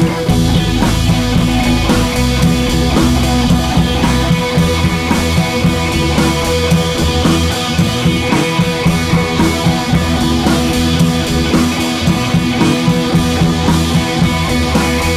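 Background rock music with drums and electric guitar and a steady beat.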